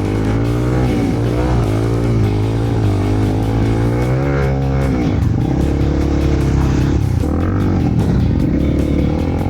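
Honda CRF300L single-cylinder dirt bike engine running under a rider, its revs rising and falling as the throttle is worked, with music underneath.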